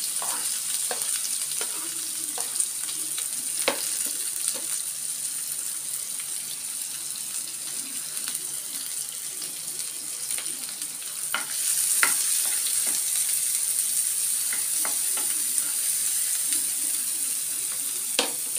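Chopped onions and green chillies sizzling in hot oil in a non-stick frying pan, with scattered clinks and scrapes of a steel spoon stirring them. The sizzle grows louder a little past the middle.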